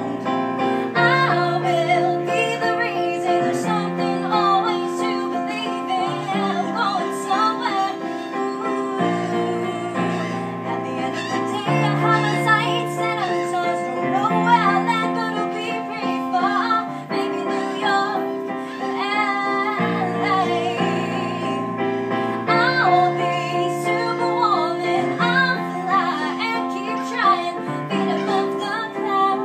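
A woman singing while accompanying herself on a Yamaha digital piano, held chords under her wavering vocal melody.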